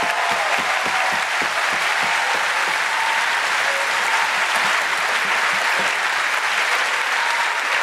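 Audience applauding: dense, even clapping from a large crowd in a hall.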